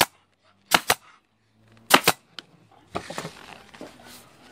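Manual staple gun firing twice, about a second apart, each shot a sharp double snap, driving staples through the vinyl cover into the motorcycle seat's plastic base. After about three seconds, rustling and handling noise follows as the seat is moved.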